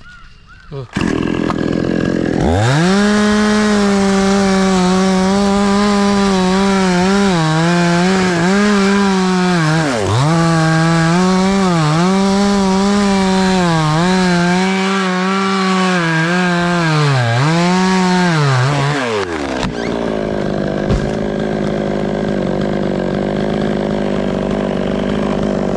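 Two-stroke chainsaw run up to full throttle and cutting wood, its pitch dipping again and again as the chain bites under load, then dropping back to idle about 19 seconds in.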